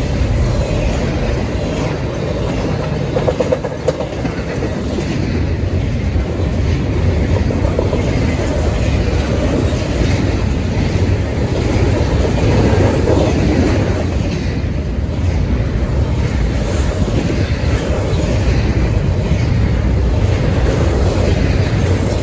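Cars of a long intermodal freight train rolling past: a steady rumble of steel wheels on the rails.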